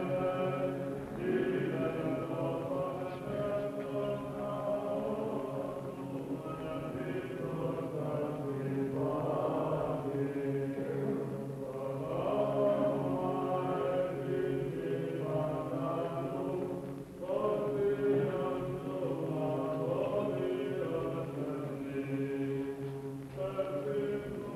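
Byzantine chant sung by a group of male voices, a slow melodic line over a steady held drone (the ison), with short breaks between phrases.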